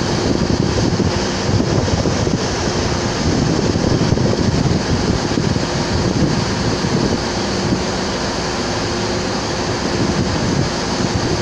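Wind buffeting the microphone, a loud, steady rush, with a faint steady hum underneath.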